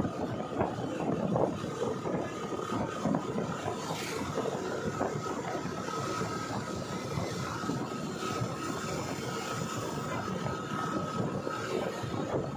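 Wind buffeting the microphone over the steady road and engine noise of a moving motorbike, with a thin steady whine underneath.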